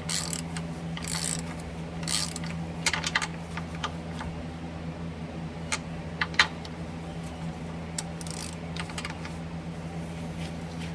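A hand ratchet wrench is worked in a few rasping strokes on a PTO mounting stud. Scattered metallic clicks and taps of tools on metal follow, the sharpest about six seconds in, all over a steady low hum.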